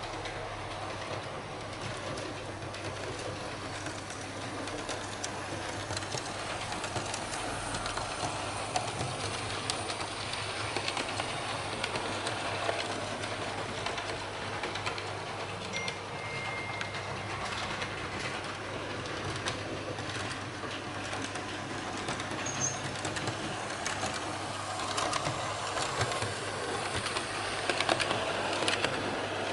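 Märklin H0 model trains running on metal M-track: a steady rolling rush peppered with small clicks of the wheels over the rail joints and points. It grows louder near the end as a model diesel locomotive with wagons passes close by.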